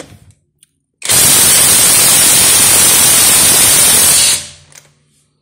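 Juemel cordless impact wrench hammering continuously for about three seconds on a bolt done up to 100 newton metres, then its motor winding down.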